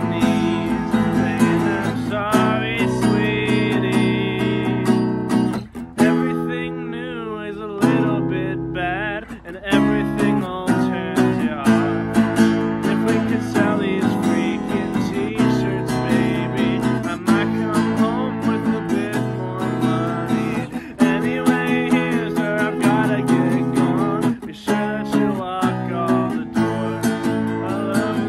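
Strummed acoustic guitar with a harmonica played over it, an instrumental break with sustained, bending harmonica notes. The strumming breaks off briefly a couple of times.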